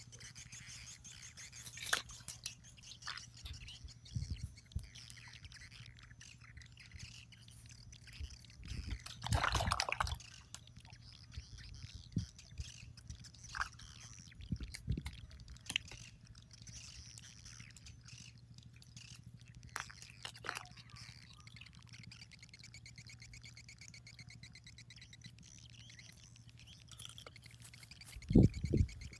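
Outdoor ambience of birds chirping over a faint steady hum. Through it come intermittent rustles and clicks of hands and feet moving over dry leaf litter, with a louder rustling burst about ten seconds in and a few low thumps near the end.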